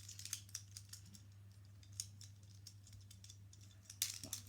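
Small plastic clicks of an infinity cube fidget toy being flipped and folded in the hands: a quick run of clicks at first, a single click about two seconds in, and a louder cluster near the end.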